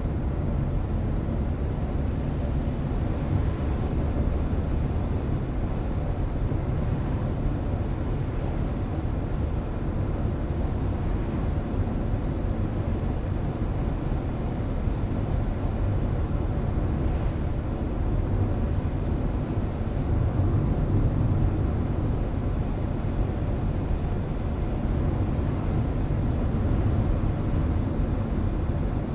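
Steady driving noise heard from inside a moving car: a continuous low rumble of tyres and engine with a fainter hiss above it.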